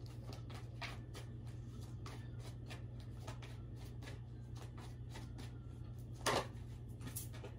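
Tarot deck being shuffled by hand: a quick, faint run of card flicks and clicks, with one louder snap about six seconds in, over a low steady hum.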